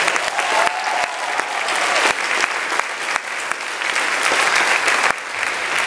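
Audience applauding: many people clapping at once, a dense steady patter of claps.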